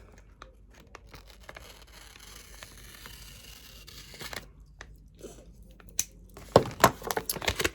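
Rustling and crinkling as a small spell-kit bag is opened and its contents are handled, then a few sharp clicks and knocks near the end as items are picked up and set down.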